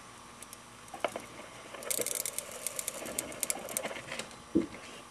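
Homemade static grass applicator being shaken over glued scenery: a rustling patter of grass fibres through its mesh strainer, with a fast run of sharp crackling ticks from about two seconds in that lasts about two seconds, and a couple of single soft knocks.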